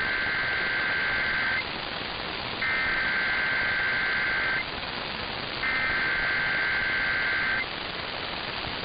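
Emergency Alert System SAME header: three bursts of two-pitch digital data tones, each about two seconds long with a second's gap between, over steady radio static. The bursts encode the alert's event type and areas and mark the start of an EAS activation, here ahead of an AMBER Alert.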